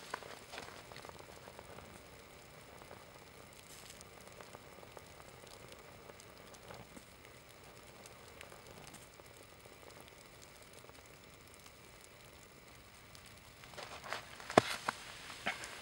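Small flames on a burning nylon/polyester track jacket, a faint steady crackle with scattered tiny pops and ticks. Near the end, a short run of louder crunching clicks.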